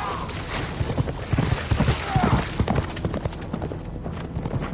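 Film soundtrack of horses galloping through shallow water: a rapid run of heavy hoofbeats and splashing, thickest between about one and three seconds in.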